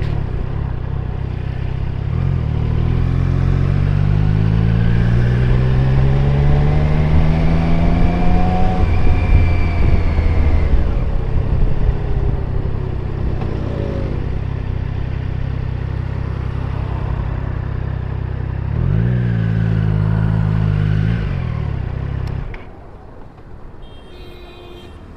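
Motorcycle engine under way: its pitch climbs for several seconds as the bike accelerates, eases back and holds steady. Near the end there is one short rise and fall in revs, then the engine sound drops away sharply.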